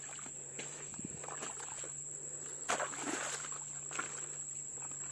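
A hoe scraping and chopping into wet soil and mud: a few scattered scrapes and dull strikes, the strongest about two and a half seconds in. Under it runs a steady high insect trill and a low steady hum.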